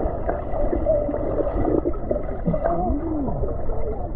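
Muffled underwater sound of a swimming pool picked up by a submerged camera: gurgling, churning water with warbling tones that glide up and down. About 2.5 seconds in, one tone arches up and falls back.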